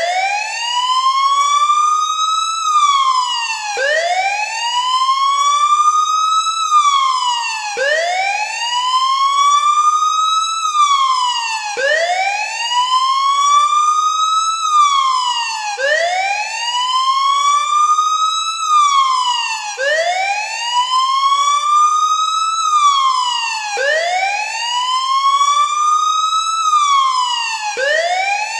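Wailing siren used as an earthquake drill alarm. Each cycle rises over about two and a half seconds and then drops, repeating every four seconds, about seven times.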